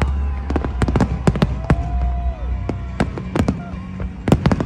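Fireworks going off: many irregular sharp bangs and cracks, with a drawn-out whistle that drops away about two and a half seconds in, over a steady low rumble.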